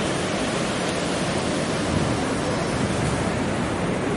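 Ocean surf breaking and washing up a sandy beach: a steady rushing noise that holds level throughout.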